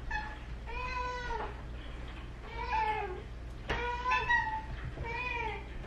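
House cats meowing for food, about five separate meows each under a second long.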